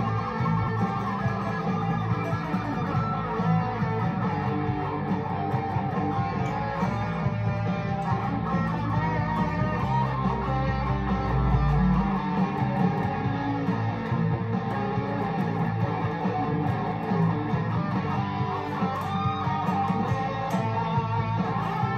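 Electric guitar playing: a Fender Player Series Stratocaster, with single-coil pickups, played through an amplifier in a continuous run of picked notes and chords. The low end thins out about halfway through.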